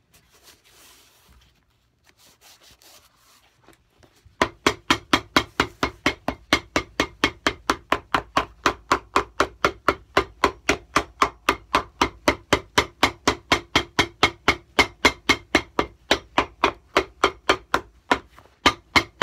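Faint rubbing, then a cobbler's hammer tapping rapidly and evenly on the bottom of a leather shoe, about four blows a second, with a brief pause near the end. The hammering beds the newly laid cork filler into the cavity between insole and sole.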